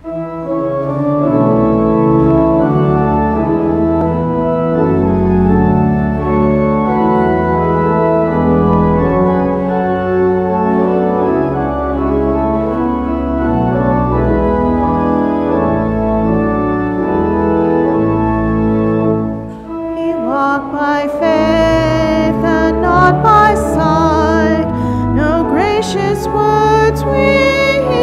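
Church organ playing slow, sustained chords over a deep bass line. About two-thirds of the way in, the music changes and a higher melody with a wavering vibrato comes in over the organ.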